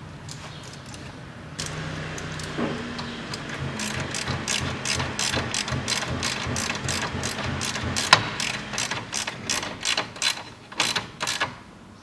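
Hand ratchet clicking in quick, even strokes, about three or four a second, as the mounting bolts of a radiator cooling-fan shroud are run in, with one sharper knock about eight seconds in.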